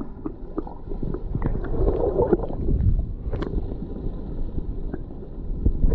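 Muffled underwater rumbling and bubbling with scattered short pops, as a swimmer dives in and glides past, heard through a camera held under the water.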